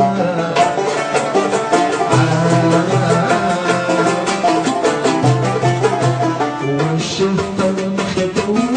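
Live Middle Eastern-style ensemble music: a plucked mandole and banjo play a fast melodic line over a steady beat.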